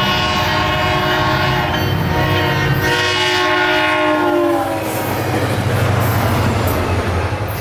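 SunRail commuter train passing at speed, cab car first, sounding its horn for the grade crossing; the horn chord dips slightly in pitch as the train goes by and stops about four and a half seconds in. After that, the rumble and wheel clatter of the coaches and the diesel locomotive at the rear carry on.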